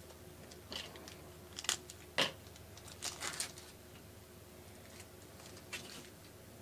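Faint handling of baseball cards: a few short rustles, slides and clicks as cards are picked up and flipped through, the sharpest about two seconds in.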